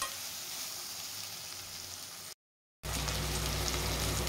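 Brinjal slices sizzling as they fry in oil in a kadai, a steady hiss. It cuts out for about half a second in the middle, then carries on.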